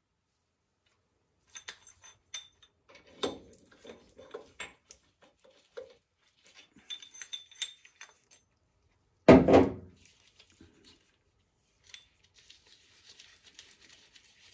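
Steel pieces of a harmonic balancer installer being handled and fitted together: light metallic clinks and clicks, some ringing briefly, with one louder knock about nine seconds in.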